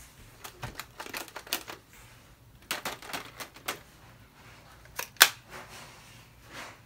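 Hard plastic clicks and taps from handling a Squeakee balloon-dinosaur robot toy, pressed and tapped in two quick flurries, with one sharper click about five seconds in. The toy itself stays silent and does not switch on.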